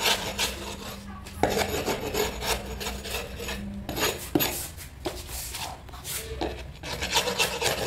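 Steel chisel scraped in repeated strokes along a plywood door panel, stripping off the old peeling surface layer. Two sharp clicks break in, about a second and a half and four seconds in.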